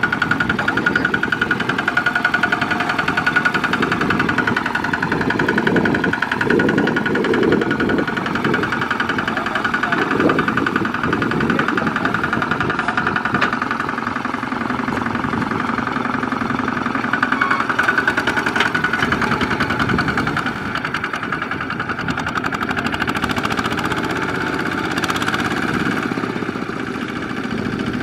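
Kubota two-wheel walking tractor's single-cylinder diesel engine running steadily under load as the mud-caked cage wheels pull it out of the mud, with a rougher stretch several seconds in and the sound easing off slightly near the end as it moves away.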